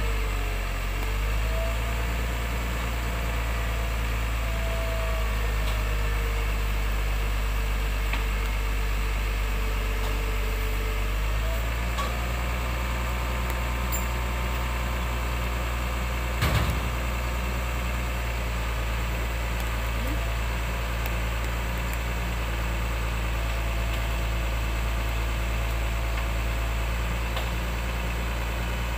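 Hino 500 truck's diesel engine running steadily to power the truck-mounted knuckle-boom crane, with a hydraulic whine that rises and falls in pitch as the boom is folded down. The engine note shifts about twelve seconds in, and there is a single knock about sixteen and a half seconds in.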